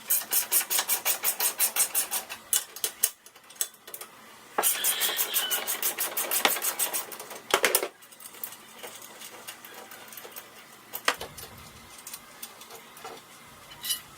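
Socket ratchet clicking rapidly in two runs, about eight clicks a second, as bolts are turned out of a golf cart's roof support mount; a few single metal knocks follow.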